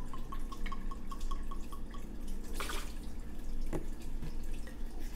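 Triple sec pouring from an upturned bottle through a metal pour spout into a blender jar, gurgling with evenly spaced air bubbles, about five a second, for about two seconds. Two sharp knocks follow later.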